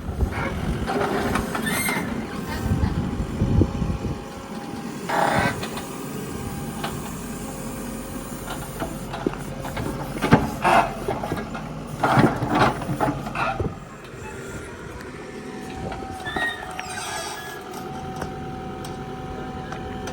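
Mahindra backhoe loader's diesel engine running steadily, with several short, louder bursts of noise over it.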